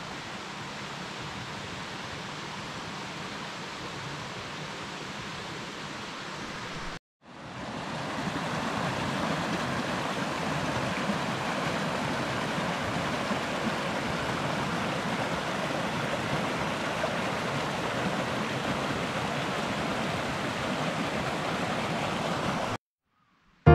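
Small forest stream rushing and splashing over a low cascade, a steady sound that starts after a short break about seven seconds in and cuts off abruptly near the end. Before the break there is a fainter steady rushing.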